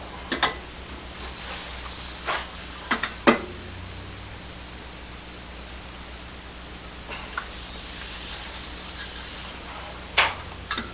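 Handheld Bernzomatic propane torch hissing as its flame is held into a wood stove to light the fire. The hiss comes in two stretches, and there are several sharp knocks along the way.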